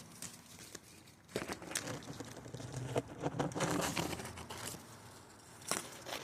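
Leaves and twigs of a hedge rustling and scraping against the camera as it is pushed in among the branches, with a few sharp snaps and clicks scattered through.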